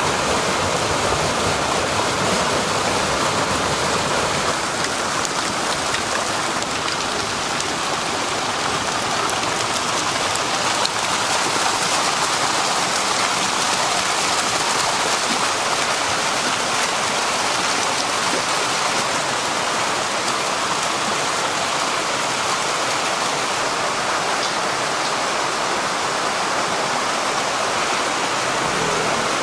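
Water gushing and splashing steadily as it pours into a holding tank crowded with live eels.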